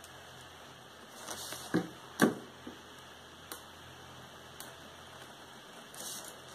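Quiet tabletop handling of a tape measure and ballpoint pen on paper. Two sharp taps come a little under two seconds in, followed by a few fainter clicks, and a brief scratch of the pen drawing on paper near the end.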